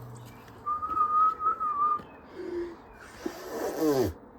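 Washing machine motor, failing under strain: a high whine, then a steeply falling whine with rattling noise as it winds down and cuts out. The motor is worn out or damaged after running in the wrecked machine.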